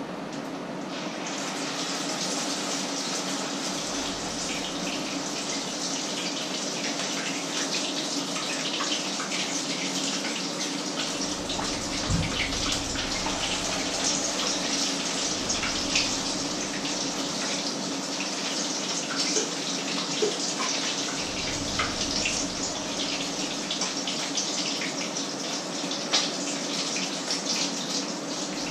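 Food sizzling in a frying pan, a steady crackling hiss, with a few light clinks of a spoon against a steel pot.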